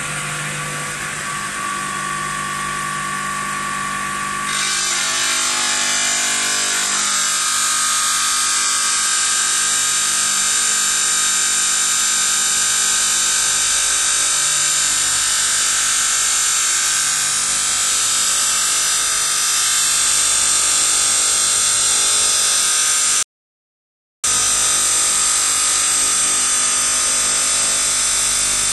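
The diamond blade of a 4-axis CNC stone bridge saw cutting stone: a steady, high-pitched grinding whine. It gets louder and brighter about four seconds in, and cuts out completely for about a second near the end.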